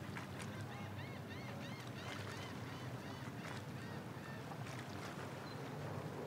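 Twin 250 hp outboard motors running at low speed with a steady low hum, while a bird gives several quick series of short, arched chirps about one to four seconds in.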